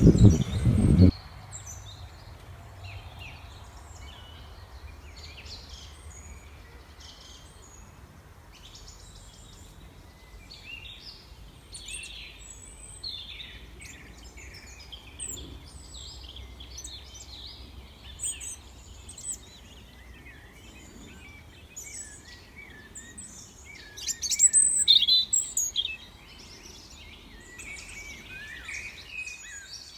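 Several small birds chirping and calling in short, overlapping phrases, with a louder flurry of calls near the end, over a faint steady low hum. It opens with a loud low rumble that cuts off about a second in.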